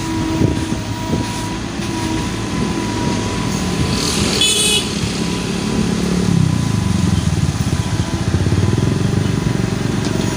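Heavy diesel engine running steadily, getting louder and deeper about six seconds in as it works under load. A brief high-pitched toot sounds near the middle.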